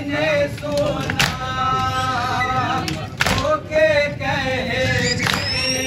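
Young men chanting a nauha, a Shia Muharram lament, in unison into a microphone. A sharp slap falls about every two seconds, in time with the chant, typical of mourners' matam (chest-beating).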